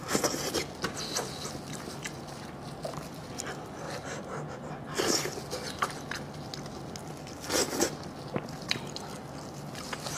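Close-up eating sounds: people chewing and sucking meat off a spicy sheep head, with small wet clicks. There are short louder bursts of sucking or sniffing near the start, about five seconds in, and about seven and a half seconds in.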